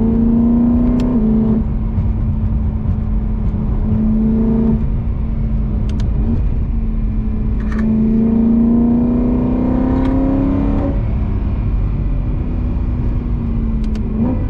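A BMW's engine heard from inside the cabin while driving. Its note dips twice in the first five seconds, then climbs steadily for about three seconds and drops about eleven seconds in, as it does when the driver shifts up. A few faint clicks sound over it.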